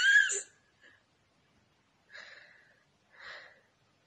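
A woman's high, voiced laugh tailing off, then two short breathy laughs, one about two seconds in and one a second later.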